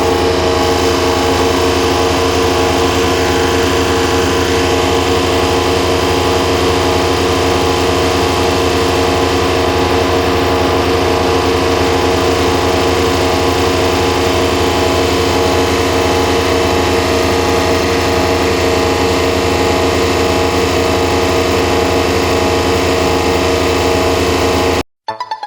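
A wood chipper's 30 hp diesel engine running at a steady speed with no load changes. It cuts off abruptly near the end.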